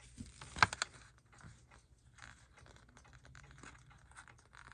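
Paper instruction booklet handled by fingers, its pages crinkling and rustling in faint scattered crackles, with a couple of sharper clicks a little over half a second in.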